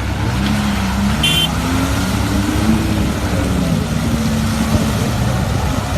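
An off-road 4x4's engine revving, its pitch climbing and then falling back, over a heavy low rumble. A brief high squeak sounds about a second in.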